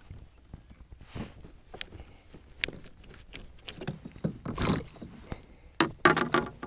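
Scattered knocks, clicks and short splashy rustles as a small largemouth bass is fought in and handled at the side of a fishing kayak, with a denser cluster of noise near the end.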